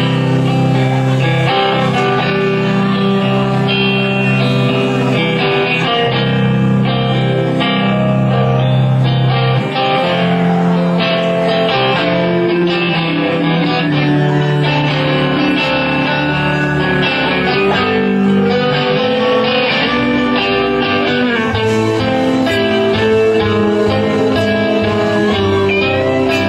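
A band playing a song with guitar to the fore, steady and loud throughout.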